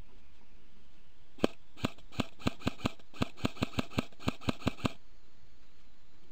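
Airsoft rifle firing about fifteen single shots in quick succession, sharp clicks at an uneven pace of four to five a second, starting about a second and a half in and stopping about five seconds in.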